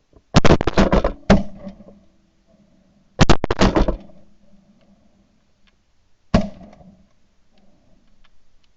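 Several shotguns fired in volleys by duck hunters. A rapid string of shots comes in the first second and a half, a second burst about three seconds in, and a single follow-up shot about six seconds in.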